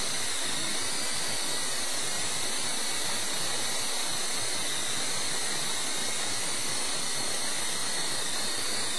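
Esky Co-Comanche coaxial electric RC helicopter in flight: a steady high motor whine over the hiss of its spinning rotors, holding an even pitch and level.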